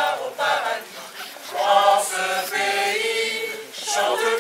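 A choir singing, with notes held for about a second at a time.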